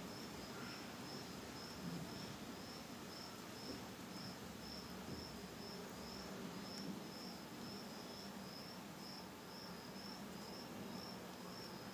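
Faint insect chirping, high-pitched short chirps repeating evenly about twice a second.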